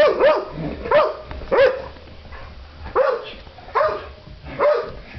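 A dog barking about seven times in uneven bursts, each bark short and sharp. Alert, guarding barks at something the dog senses but nobody sees.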